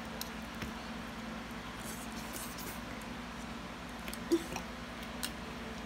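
Faint clicks and scrapes of a knife and fork cutting into a roast chicken on a plate, over a steady low hum. One short squeak about four seconds in is the loudest sound.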